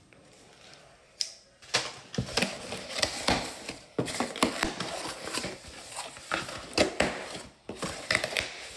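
Cardboard shipping box being opened by hand: irregular crackling, scraping and clicking of the cardboard as the flaps are pulled and pried open, starting about a second in.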